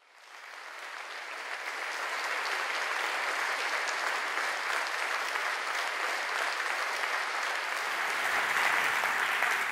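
An audience applauding: dense, steady clapping that swells up over the first couple of seconds.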